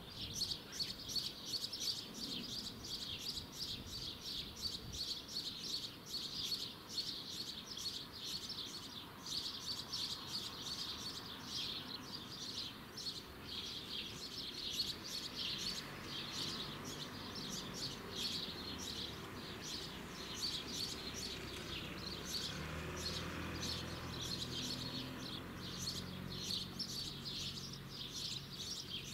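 Birds chirping continuously in rapid, high-pitched notes. In the second half a low engine hum joins in, strongest a few seconds before the end.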